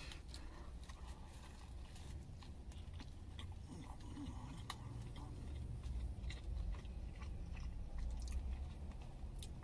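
A man biting into a cheeseburger and chewing it, small mouth clicks scattered through, over a steady low rumble.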